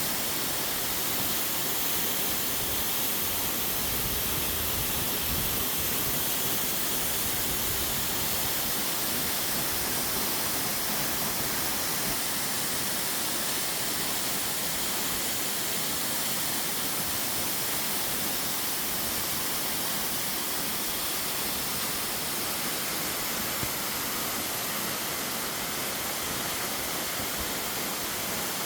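Tiered mountain-stream waterfall: water tumbling down a series of rock steps in a steady, even rush that does not change.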